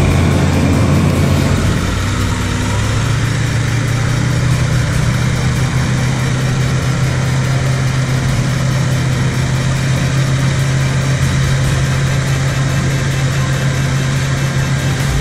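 Caterpillar 120H motor grader's diesel engine running steadily, a loud, even low hum, while the grader works its blade through wet soil.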